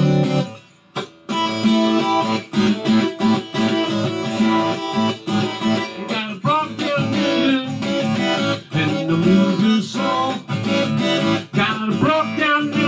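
Takamine acoustic guitar strummed in a blues rhythm during an instrumental break, with a harmonica playing held notes that bend upward twice. The playing drops out briefly about a second in.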